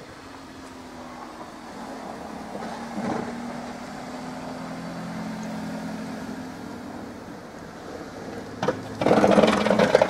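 A motor vehicle's engine hum swells and eases over several seconds. About nine seconds in, a much louder rough noise takes over.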